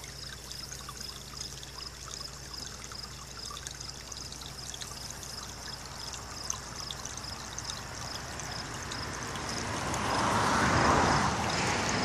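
Small spring-fed mountain creek trickling steadily, growing louder near the end, with a faint high pulsing a few times a second.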